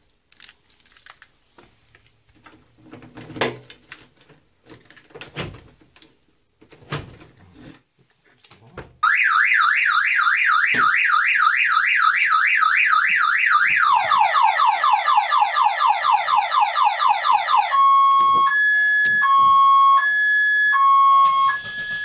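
A car alarm siren goes off when the door of the armed car is opened with the key. First come a few clicks and knocks from the lock and door. About nine seconds in, the siren starts with a fast rising-and-falling warble, changes to quick falling sweeps, then near the end switches to two alternating tones.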